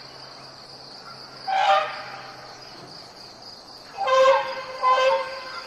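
Asian elephants trumpeting in short loud calls, one about a second and a half in and two more close together near the end, over a steady high buzz of insects.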